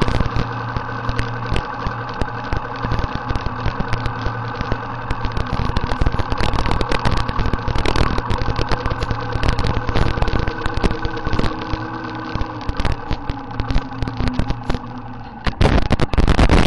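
Massey Ferguson tractor engine running steadily as the tractor drives along, with a constant rattling and clattering of loose metal. It gets louder for a moment near the end.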